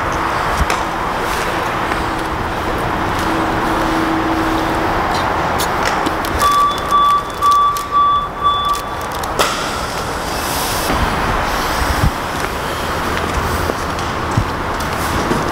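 Steady outdoor background noise with a faint steady hum. Midway through comes a run of short, evenly spaced electronic beeps at one high pitch, about two a second, lasting roughly three seconds.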